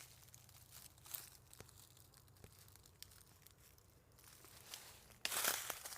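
Faint crackling and crunching of footsteps in dry leaf litter and brush, then a loud crunching rustle about five seconds in.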